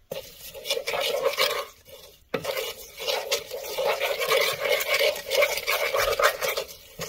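Wooden spoon stirring and scraping a herb-and-garlic seasoning mix around a plastic mixing bowl, full of small clicks and rubs. It pauses briefly about two seconds in, then starts again.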